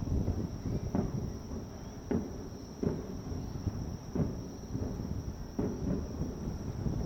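Aerial fireworks bursting over a river, a series of booms about one a second, each trailing off in a rumbling echo over a steady low rumble.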